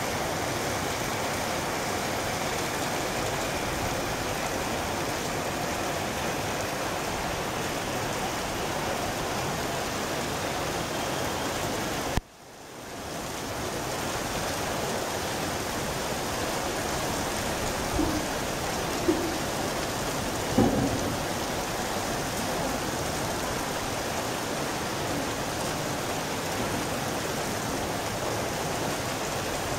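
Steady rain, an even hiss. About twelve seconds in, a sharp click cuts the sound away, and it swells back over a couple of seconds. A few short knocks follow a little later.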